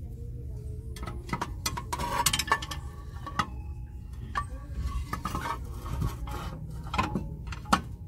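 Porcelain collector plates clinking and tapping against one another and their wire display stands as they are handled: a string of sharp clinks, some with a short ring.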